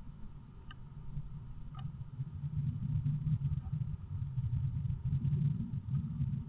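Low rumbling and rustling inside a wooden nest box as a female great tit shuffles and turns in its moss nest, with a few faint high ticks in the first two seconds. The rumble swells about halfway through.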